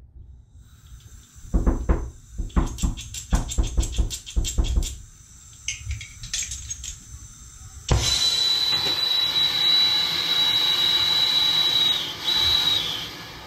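Several knocks and clatters of hard objects being handled, then about eight seconds in a hose-fed soldering torch comes on with a sudden, loud, steady hiss of burning gas and a thin high whistle. The whistle breaks off near the end and the hiss falls to a lower level.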